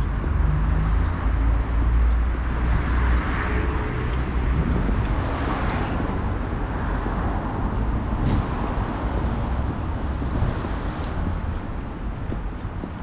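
Urban street traffic noise: a steady hum of cars with a low rumble, swelling a few seconds in as a vehicle passes.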